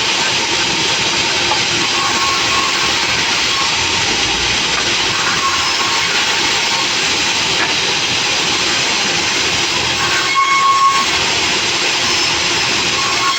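Sawmill saw running with a loud, steady rushing hiss, with a brief change in tone about ten seconds in.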